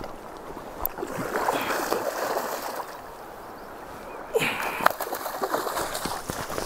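A hooked coho salmon thrashing in shallow river water as a landing net sweeps it up, the splashing getting suddenly louder about four seconds in.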